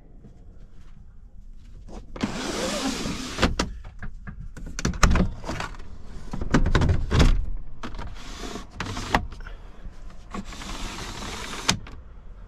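Plastic roof skylight of a camper van being pushed open by hand, with its pleated blind and fly screen slid back. Several sliding rasps mixed with sharp plastic clicks and knocks.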